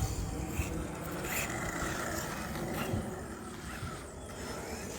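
Small electric RC truck's motor whining as it drives, the pitch shifting with throttle, with a few light knocks.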